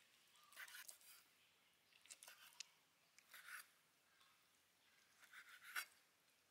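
A knife cutting cleaned pork chitterlings on a wooden cutting board: about four faint, short bursts of slicing, with light taps of the blade on the wood. The last, near the end, is the loudest.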